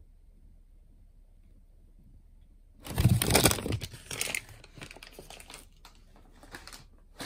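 Brown paper bag rustling and crinkling as it is handled, starting about three seconds in with a low thump, loud for about a second and a half, then fading into lighter rustles.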